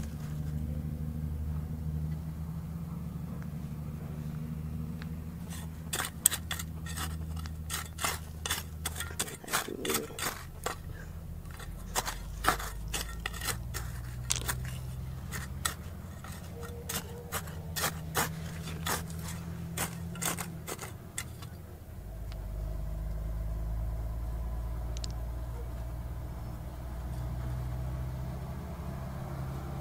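A steady low hum, with a run of sharp, irregular clicks and taps lasting about fifteen seconds in the middle.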